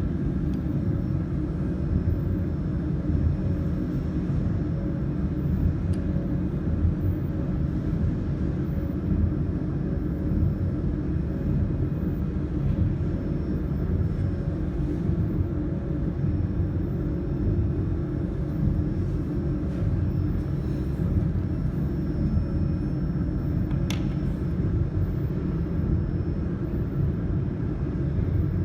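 A steady low rumble with a faint hum over it, and a single sharp click about 24 seconds in.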